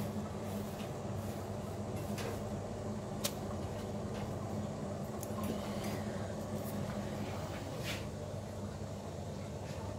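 Noodles boiling in a stainless steel pasta pot: steady bubbling at a full boil, over a constant low hum, with a few light clicks.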